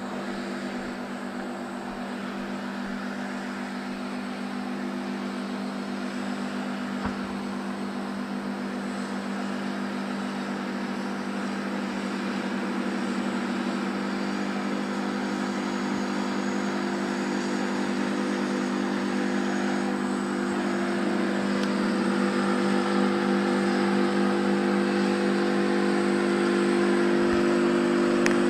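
Tank column's diesel engines running as the tanks approach along a road: a steady low drone that grows gradually louder.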